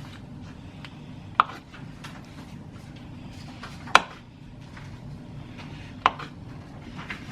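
A kitchen utensil knocking sharply against a dish three times, about a second in, around four seconds and about six seconds in, as butter is added to seasoned potatoes, over a low steady hum.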